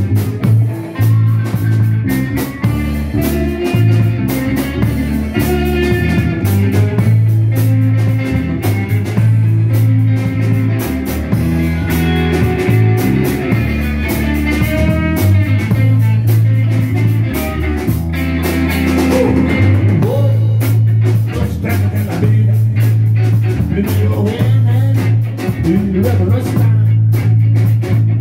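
Blues band playing: an electric bass guitar and a Ludwig drum kit keep the groove, with a wavering melody line on top.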